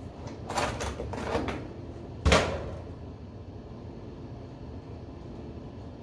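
A few quick knocks and rattles, then one loud bang about two seconds in that dies away quickly.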